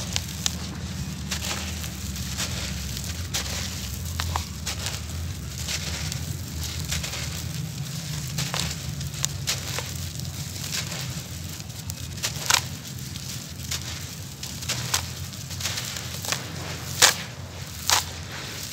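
Crumbled dry cement grit poured in a stream onto a pile of rubble: a steady hiss of falling grit full of small crackling ticks. A few sharper clicks come near the end.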